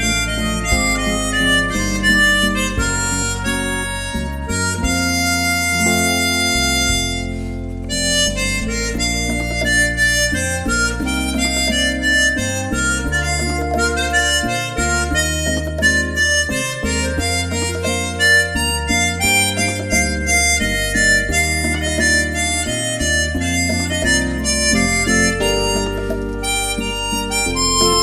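Harmonica playing a melody over a bass accompaniment, the low notes changing every second or two.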